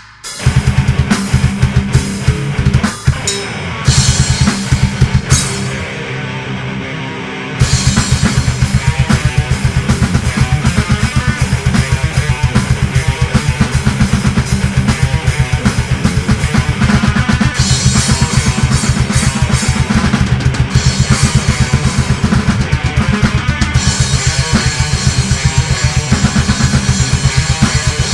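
Death metal instrumental with drums and guitar. It opens with sparse, heavy drum hits and a short thinner break, and about eight seconds in breaks into a fast, continuous kick-drum pattern under the guitars.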